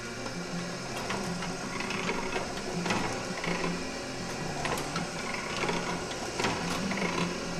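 Power-driven platen letterpress running, its flywheel turning and roller arms carrying the ink rollers up and down over the type in a steady, repeating mechanical clatter with sharp clicks. The press is only inking up, not yet printing.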